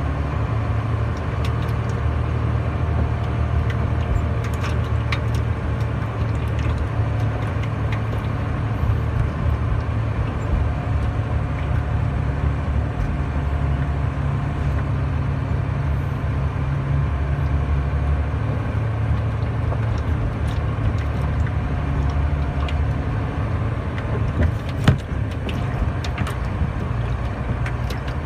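Trailer truck's diesel engine running steadily, heard from inside the cab while driving, with scattered light clicks and rattles and one sharp knock about 25 seconds in.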